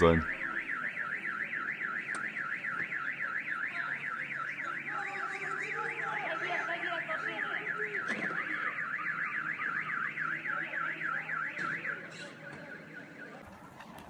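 Car alarm sounding: a high, fast warbling tone rising and falling several times a second, which stops about twelve seconds in.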